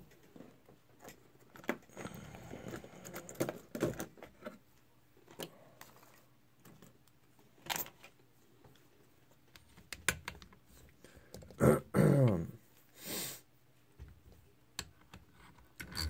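An American Lock 1100 padlock being handled and clamped into a metal bench vise: scattered metal clicks, rattles and knocks. The loudest moment is a short burst with a bending pitch about twelve seconds in.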